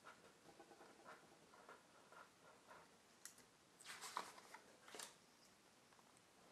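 Pen writing on a paper card, faint scratches and squeaks, then the card is picked up and bent with louder paper rustles and clicks about four seconds in.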